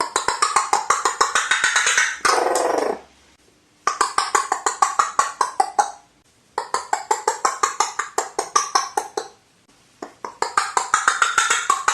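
Crow making a rapid rattling, knocking call of sharp clicks at about ten a second, in bouts of two to three seconds with short pauses between; about two seconds in, a drawn-out call falls steeply in pitch.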